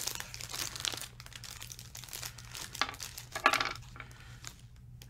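Foil toy pack being torn open and crinkled by hand, with louder crackles around three seconds in.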